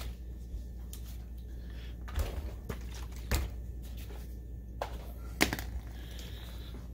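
A few scattered clicks and knocks as the plastic housing of a DLP projector is handled and shifted on a cardboard-covered workbench, the sharpest about five and a half seconds in, over a steady low hum.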